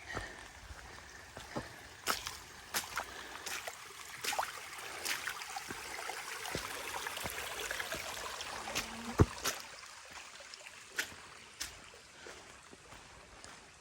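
Footsteps and irregular sharp clicks on a rocky mountain trail over a hissing background that swells in the middle, with one louder knock about nine seconds in.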